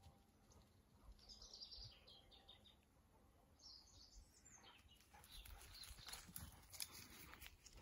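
Near silence with faint high bird chirps about a second in and again around four seconds. From about five seconds in, faint irregular rustling of brush and brambles as the pointing dog and the person move into the undergrowth.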